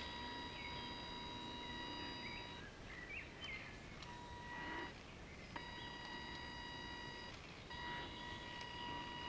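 RC model boat's electric drive giving a steady high whine that cuts out about two and a half seconds in and comes back on and off several times as it tows a log raft. Birds chirp a few times.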